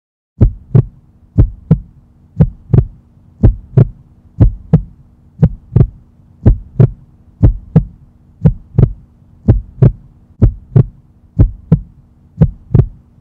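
Heartbeat sound effect: paired lub-dub thumps about once a second, over a faint steady low hum.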